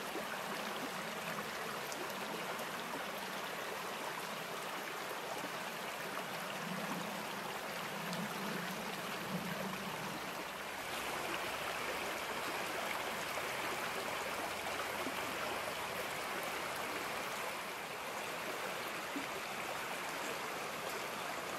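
Small rocky brook flowing over stones in a shallow riffle, a steady rushing of water that changes character a little about halfway through.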